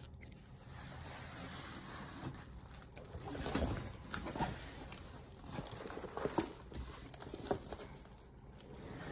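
Large diamond painting canvas being handled and pressed flat by hand: irregular rustles and soft pats of the sheet, starting about two seconds in and stopping shortly before the end.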